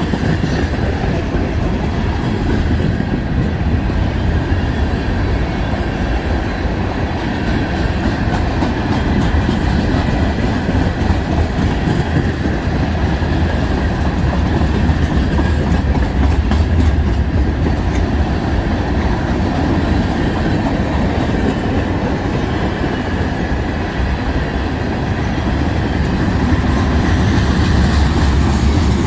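Freight cars of a long mixed freight train rolling past, a steady loud rumble with the clickety-clack of steel wheels over the rail joints.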